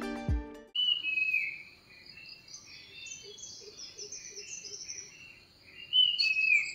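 Background music stops within the first second, then early-morning birdsong: several birds chirping and calling over a steady, high insect drone, with louder calls about a second in and near the end.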